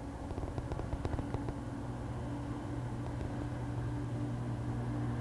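Steady low mechanical hum with a constant pitch, growing a little louder toward the end, with a few faint clicks about a second in.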